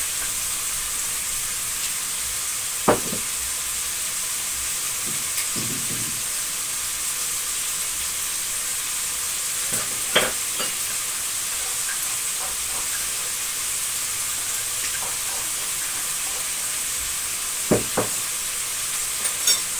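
Beef liver strips and green pepper sizzling steadily as they fry in oil in a pan, with a few short sharp knocks: about three seconds in, around ten seconds in, and near the end.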